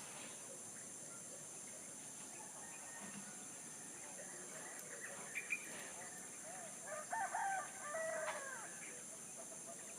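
A rooster crows once, about seven seconds in, over small birds chirping briefly and a steady high-pitched hiss.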